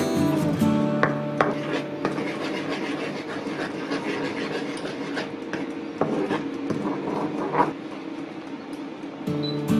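Wooden spatula stirring and scraping thick, bubbling sauce in a nonstick wok, a steady rubbing sound with a few sharp knocks against the pan. Background music fades out about half a second in and comes back near the end.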